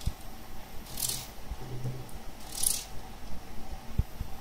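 Kitchen knife slicing small pieces off a raw peeled potato held in the hand: two short crisp cuts, with soft knocks near the start and end as pieces drop onto a plate.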